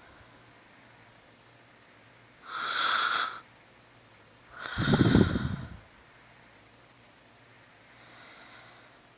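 Snoring in sleep, slow and irregular: a breathy hiss about two and a half seconds in, a louder and deeper snore about two seconds later, and a faint breath near the end.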